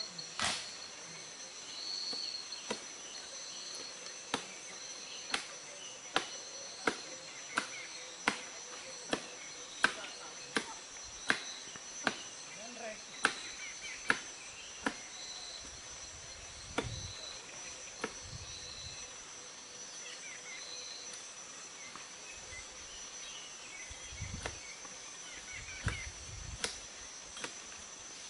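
Regular sharp chopping strokes, about one every three-quarters of a second, from a blade cutting at an oil palm's crown to bring down the fruit bunches. Steady high insect chirring runs behind.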